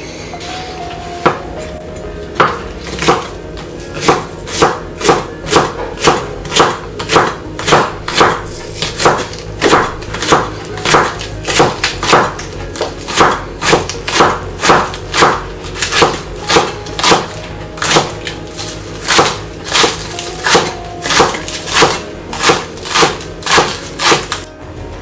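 Chef's knife slicing spring onions on a wooden cutting board: crisp knocks of the blade on the board, a few scattered ones at first, then a steady chopping rhythm of about two a second that stops just before the end.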